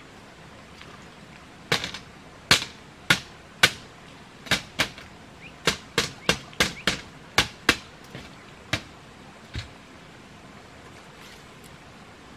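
About fifteen sharp knocks on bamboo, struck one at a time at an uneven pace from about two seconds in and stopping before ten seconds, as the slats of a bamboo wall are hit while being fitted.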